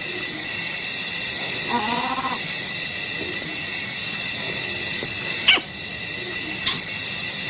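Young leopard giving a short, wavering low call about two seconds in, over a steady chorus of insects. Two sharp high clicks come near the end.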